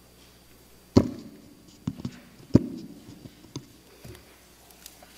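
Knocks and taps of things being handled at a wooden pulpit, close to its microphone: two sharp thumps about a second and two and a half seconds in, with lighter taps between and after.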